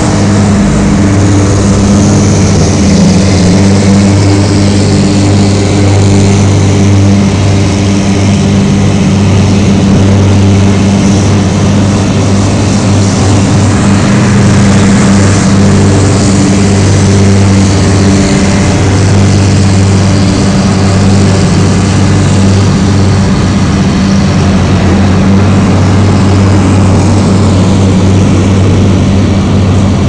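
Heavy diesel engines of Øveraasen airport snow-clearing trucks running steadily under load as they pass, with a constant low drone and a high hiss of snow being swept and blown.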